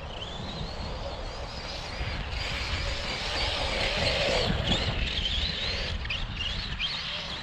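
Brushless electric motor of a Losi 3XL-E RC car whining as the car runs: the high whine rises in pitch over the first second, holds, then wavers up and down with the throttle, over a low rumble.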